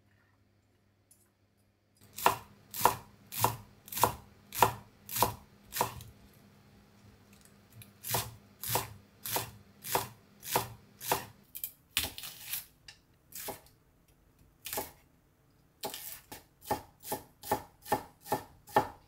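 Chef's knife chopping vegetables, including garlic chives, on a wooden cutting board. After a quiet first two seconds come steady strokes a little under two a second, then a few scattered cuts, and near the end a quicker run of mincing strokes.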